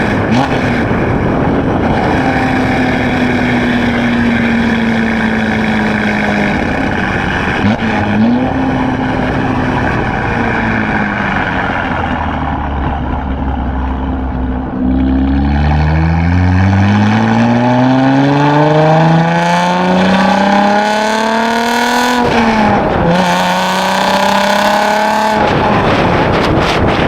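2016 Chevrolet Camaro RS engine through a Borla ATAK axle-back exhaust. For the first half it cruises at steady revs that slowly sag. About halfway through it pulls hard, its pitch climbing steadily for several seconds, and there is a quick dip in pitch at an upshift. It holds steady briefly, then near the end the exhaust note drops away, leaving road and wind noise.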